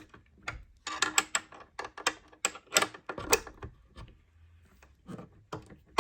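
Wrench clicking and scraping on the metal nuts of a motorcycle's mirror mount as they are undone, in irregular bursts of sharp clicks.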